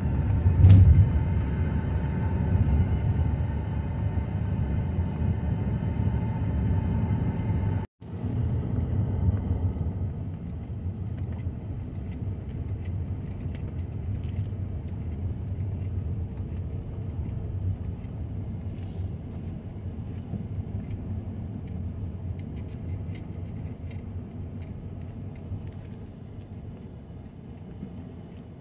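Road and engine rumble heard from inside a 2012 Chevy Cruze while driving, with a loud thump about a second in. After a brief break about eight seconds in, the rumble is quieter with scattered light ticks and fades as the car slows to a stop.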